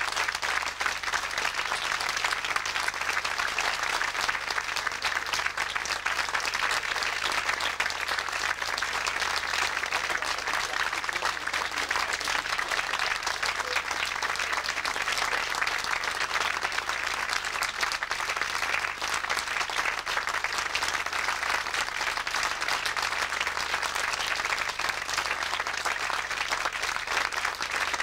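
A live audience applauding steadily, many hands clapping without a break, as the performers take their bows at the end of the number.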